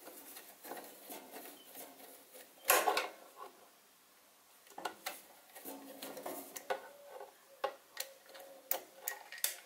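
Screwdriver turning and fumbling at a screw inside a sheet-metal electrical control box: small metallic clicks and scrapes, with one louder clatter a little under three seconds in and a run of sharper ticks in the second half.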